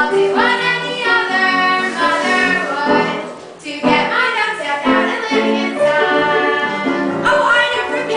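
Children singing a musical-theatre song, with a short break in the singing about three and a half seconds in.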